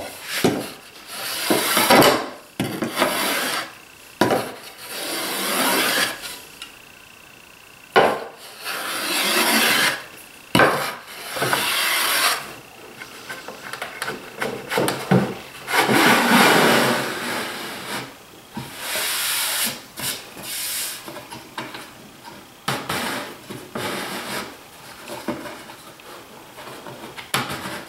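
Wooden sliding lid pushed back and forth in the grooves of a wooden box, wood rubbing on wood in repeated strokes of a second or two each, with a few sharp knocks. This is a dry fit of a tight lid that binds in spots along the top.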